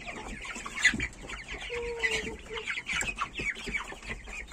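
A flock of young Mechelen cuckoo, Faverolles and Bresse chickens calling together: many short, high, downward-sliding calls overlap without pause, with one longer, lower held note about two seconds in.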